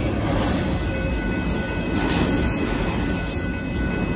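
Union Pacific freight train of autorack car carriers rolling past, a steady rumble of wheels on rail with a faint, steady high squeal from the wheels.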